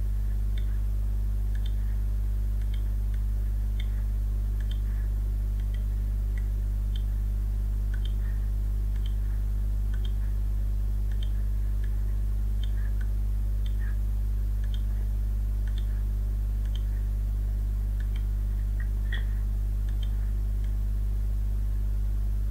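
Steady low hum with faint, scattered computer mouse clicks, roughly one a second, as faces of a model are picked on screen.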